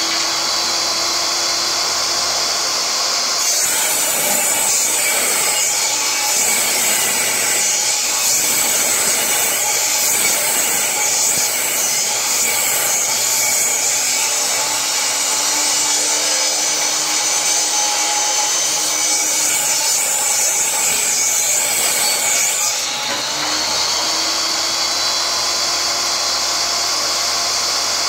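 Portable benchtop table saw running, ripping a length of old pressure-treated board. The sound changes from about three seconds in to about twenty-three seconds in while the blade cuts under load, with the motor running free before and after.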